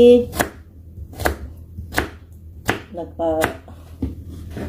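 Kitchen knife chopping vegetables on a cutting board, with a sharp knock each time the blade meets the board, about six strokes at a slow, uneven pace.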